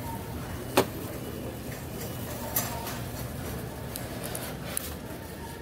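Steady low hum of a big store's background noise with three short, sharp clicks; the loudest comes a little under a second in, and fainter ones come about halfway through and near the end.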